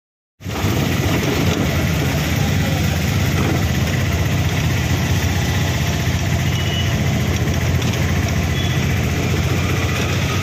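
Auto-rickshaw engine running steadily as it drives along, heard from inside the open passenger cabin together with road noise. It cuts in suddenly about half a second in.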